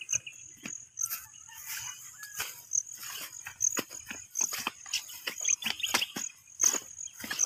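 An insect chirping in short high notes about once a second over a faint steady high trill. Irregular clicks and knocks, which are the loudest sounds, come from the handheld phone being carried across the field.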